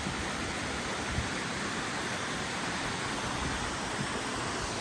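Steady rush of a creek's flowing water, with a soft thump about a second in.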